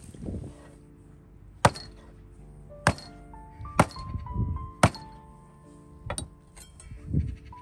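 A large knife chopping through a raw goose onto a wooden log chopping block, about five sharp chops roughly a second apart, over background music.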